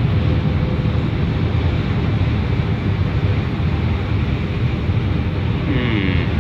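Steady road noise of a car at highway speed heard from inside the cabin: tyre rumble and engine with a constant low roar.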